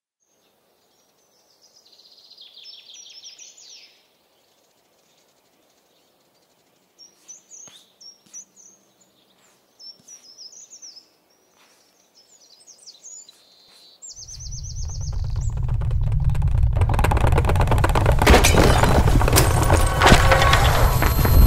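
Sparse, quiet bird chirps over faint ambience. About two-thirds of the way in, a deep rumble swells up and a loud, dense wash of cinematic sound builds over it.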